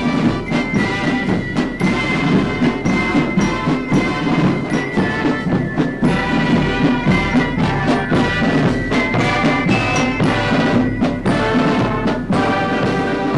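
Marching band playing a march: brass instruments carry the tune over a steady drum beat.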